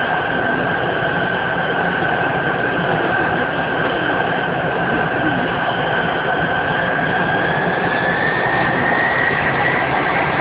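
Tupolev Tu-134A's rear-mounted Soloviev D-30 turbofans heard from inside the cabin: a steady engine rush with a high whine that rises in pitch over the last few seconds.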